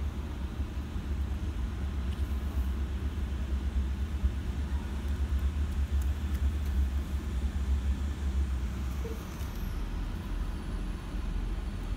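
Low, steady rumble of urban outdoor background noise, with no clear single event.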